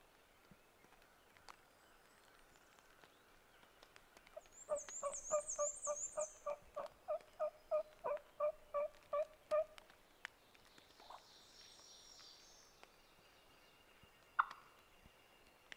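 A wild turkey hen yelping: a run of about fifteen evenly spaced yelps, about three a second, lasting some five seconds. A small songbird calls high above the yelps, and one sharp loud note comes near the end.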